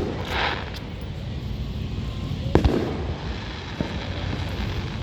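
Fireworks going off: a short crackling hiss under a second in, then a sharp bang about two and a half seconds in and a smaller one a little over a second later, over a steady low rumble.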